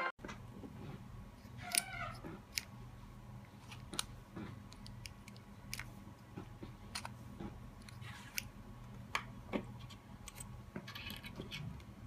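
Faint, scattered clicks and taps of a stainless steel push-button drawer lock being handled, its button pressed in and out.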